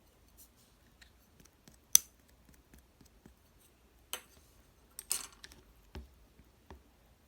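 Slime being handled and pressed by hand, giving scattered sharp clicks and pops: the loudest about two seconds in, another about four seconds in, and a short crackling run around five seconds.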